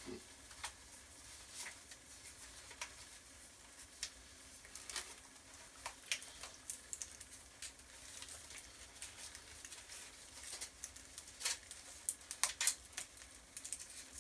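Irregular light clicks and crinkles of plastic packaging, scattered unevenly, with a few louder clicks near the end.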